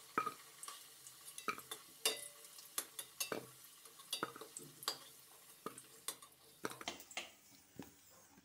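Metal spatula scraping and clinking in a karahi while fried potato pieces are scooped out of hot soybean oil, in an irregular string of scrapes and clinks about two a second. The oil sizzles faintly underneath.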